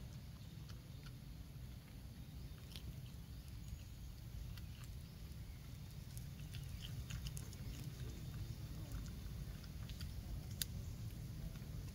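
Small, scattered clicks and crunches of a baby macaque chewing lotus, heard close up, over a low steady rumble.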